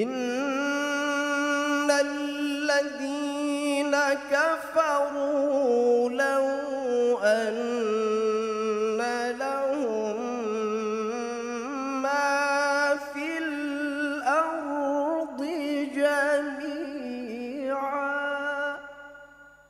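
Male qari reciting the Quran in the ornamented, melodic tilawah style, one long phrase held in a single breath. The pitch wavers in turns and vibrato throughout. It starts abruptly and fades away near the end.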